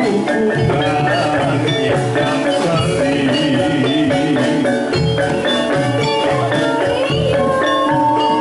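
Javanese gamelan playing jathilan music: kendang hand drums beat out the rhythm beneath bronze gongs and keyed metallophones carrying the melody.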